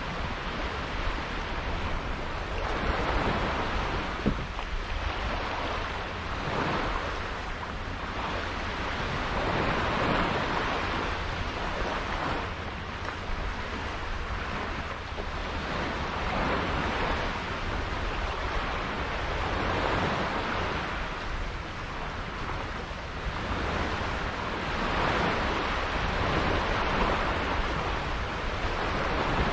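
Sea water rushing and splashing past a sailboat, swelling and easing every few seconds, with wind rumbling on the microphone.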